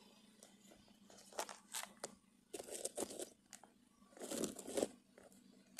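Handling noise from a phone camera being moved and repositioned: a series of short rustles, scrapes and bumps against the microphone, the longest near the end.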